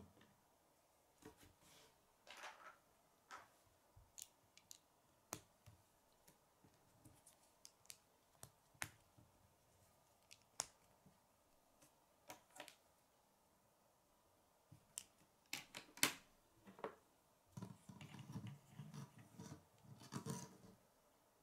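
K'nex plastic rods and connectors snapping and clicking together as a model is put together by hand: scattered sharp clicks, with a busier clatter of handled pieces near the end.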